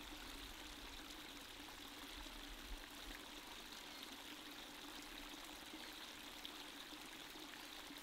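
Faint, steady flow of river water, with no distinct splash.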